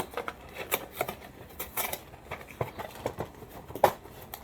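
Cereal box being handled and pried open by hand: irregular clicks, taps and short scrapes, with one sharper, louder click near the end.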